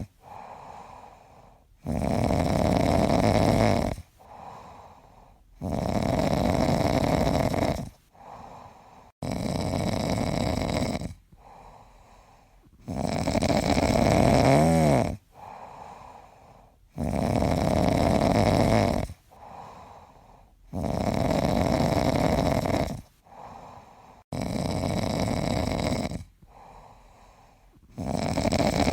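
A person snoring in a steady rhythm: eight loud snores, each about two seconds long and roughly four seconds apart, with a quieter breath in between each.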